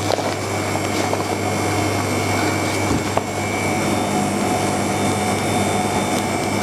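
Steady hum of commercial kitchen machinery running, a constant low drone with a thin high whine held above it.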